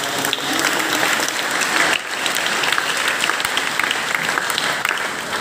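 Church congregation applauding: many hands clapping at once in a dense, steady patter.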